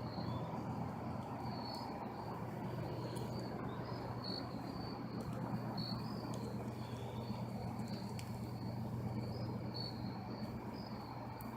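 Crickets chirping steadily in the night, a continuous high trill with short brighter chirps repeating through it, over a low steady hum.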